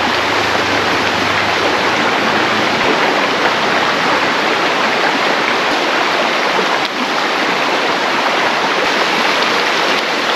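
River water rushing steadily over a rocky bed, a loud, even wash of sound with no breaks.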